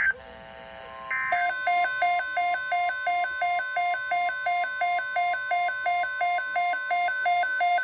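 Short SAME data bursts marking the end of the previous alert, then a weather radio receiver's electronic alert alarm starting about a second in. The alarm is a rapid two-tone beeping that alternates low and high about three times a second, signalling that a new alert is coming in.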